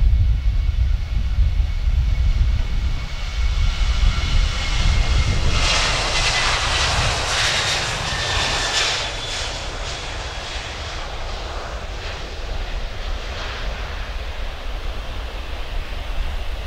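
Boeing 737-900ER's twin CFM56-7B jet engines at takeoff thrust as the airliner rolls past and lifts off. A roar with a whine builds to its loudest about six to nine seconds in, then fades as the jet climbs away.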